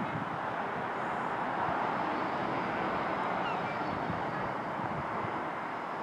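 John Deere 7R 330 tractor's six-cylinder diesel engine running steadily under load as it pulls a Kverneland reversible plough through stubble.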